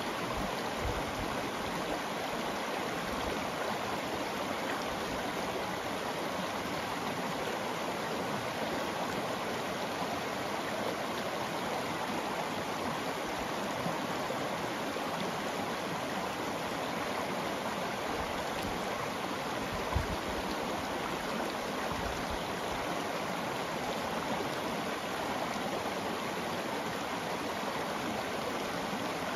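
Shallow rocky river flowing steadily over cobbles and small riffles, a constant sound of running water.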